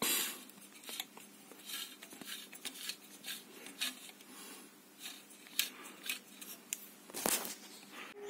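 Dial-cord tuning drive of a 1952 Philco B-821 valve radio being turned by hand: the cord running over its pulleys and the variable capacitor's drum gives faint scattered clicks and light rubbing, with a couple of louder clicks near the end. The two-stage drive, knob to capacitor and capacitor to dial needle, moves freely now that the jammed cord has been sorted out.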